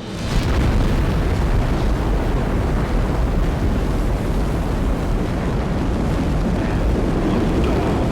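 Space Shuttle launch: the rocket engines running at liftoff, a loud, steady, deep rumble that comes in sharply a moment after the start and holds without a break.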